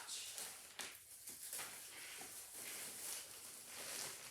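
Packaging rustling and crinkling as a boxed watch is handled and unwrapped, with a sharper click about a second in.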